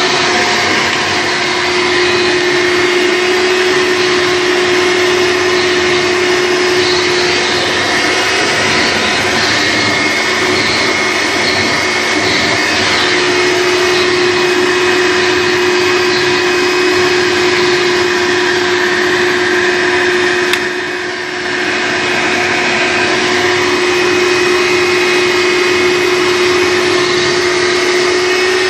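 1998 Hoover Runabout U4258 upright vacuum cleaner running with its motor at full speed: a loud, steady hum and whine. The pitch shifts for a few seconds about eight seconds in, as the airflow changes. A sharp click about twenty seconds in is followed by a brief drop in loudness.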